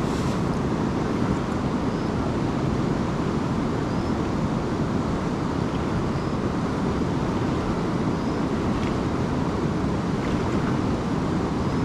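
Steady rushing of a large, fast river, an even low roar with no breaks.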